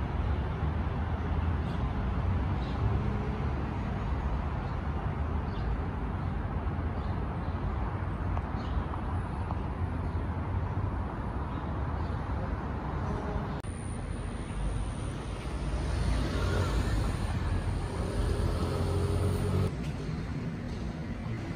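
Steady low rumble of road traffic and vehicle engines, with no siren.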